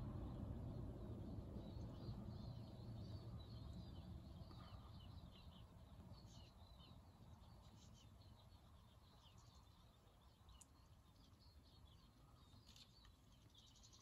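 Faint twittering calls of small garden birds, thinning out after the first half, over a low background rumble that fades away.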